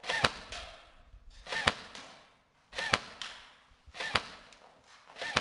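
G&G CM16 SRS airsoft electric gun fired in single shots at a steady pace, about one every second and a half. Each shot is a brief whir of the motor and gearbox ending in a sharp crack.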